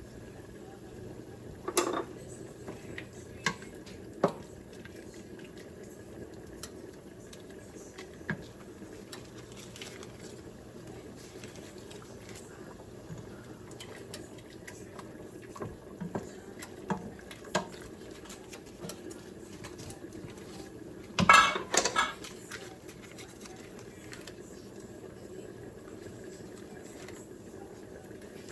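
Spoon and cooking pot clattering as dumplings are dropped into a pot of chicken broth: scattered single knocks, with the loudest run of clatter about three quarters of the way through, over a steady low background noise.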